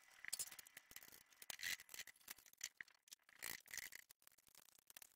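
Faint, irregular clicking and scraping of hand tools on metal as a motorcycle is being dismantled.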